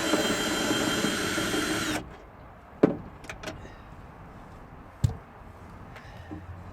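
Cordless drill-driver running steadily for about two seconds, backing out a fastener from the car door, then stopping abruptly; two sharp knocks follow, about a second and two seconds later.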